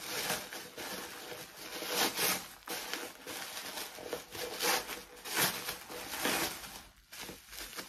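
Wrapping paper rustling and crinkling in irregular bursts as a wrapped item is unwrapped by hand.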